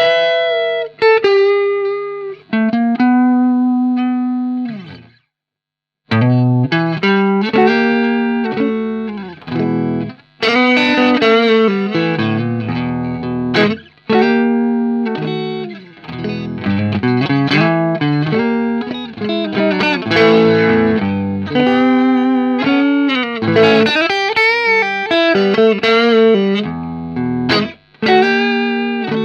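Guitar played solo: a few notes and chords left ringing, a pause of about a second near five seconds in, then steady picked chordal playing with moving bass notes.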